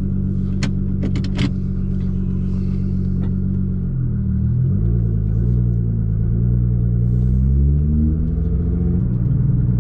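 Nissan GT-R R35 twin-turbo V6 with a near-straight-piped aftermarket exhaust, heard from inside the cabin: running steadily at first, then about four seconds in its note dips and climbs steadily for a few seconds as the car pulls away, dropping back near the end. A few light clicks in the first second and a half.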